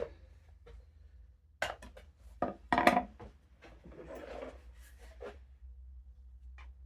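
Wooden chair parts and a wooden joining biscuit being handled and tried in a slot: a few sharp knocks and clacks about one and a half to three seconds in, then a brief scraping rub, over a low steady hum.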